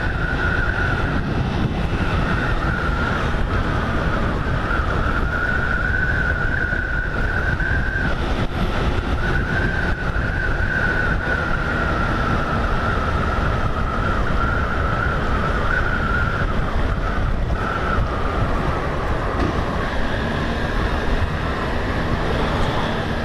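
Honda 160 motorcycle's brakes squealing with a high, slightly wavering tone on a long steep descent, over wind rush and engine noise; the squeal fades out about three-quarters of the way through. The brakes are overheating: right after, the rider says the bike lost its brakes because they got hot.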